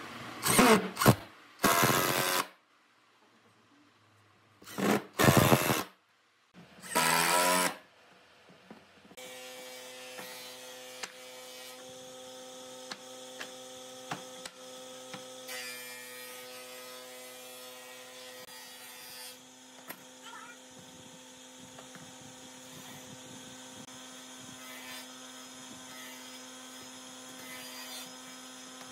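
Cordless drill driving wood screws into pine in four short bursts, the motor's pitch bending as each screw runs in. After that, a steady hum with scattered light knocks as wooden strips and clamps are handled.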